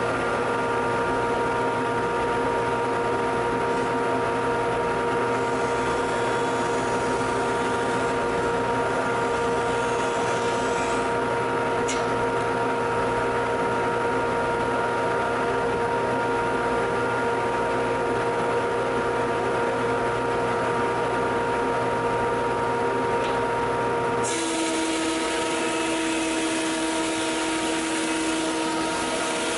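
Jet JJP-12HH 12-inch jointer/planer with a helical cutterhead running as a planer while a board feeds through: a steady machine whine with several held tones. About three-quarters of the way through, the tone changes: the low hum drops away and a new, lower note comes in.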